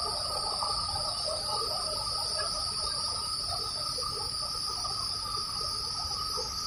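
Insects trilling steadily, two even high-pitched tones, over the low rush and churning of foamy river rapids below a waterfall.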